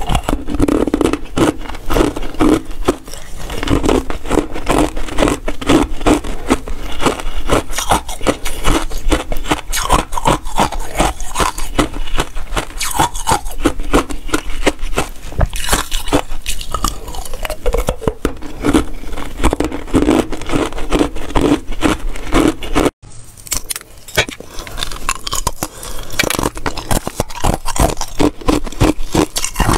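Close-miked biting and crunching of hard ice, a dense run of crisp cracks and crunches. It breaks off abruptly about two-thirds of the way through and starts again after a brief gap.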